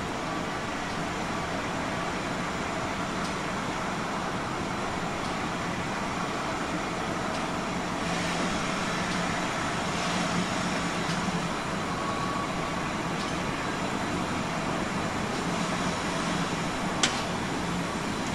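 Steam locomotive moving slowly tender-first over pointwork: a steady low rumble and hiss with no chuffing beat, and one sharp metallic click near the end.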